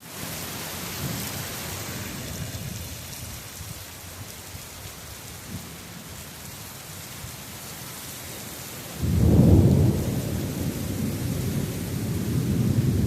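Heavy rain falling steadily, then about nine seconds in a sudden loud crack of thunder that keeps rumbling low and heavy over the rain.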